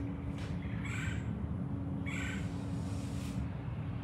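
A bird giving two short, harsh calls about a second apart, over a steady low hum that stops near the end.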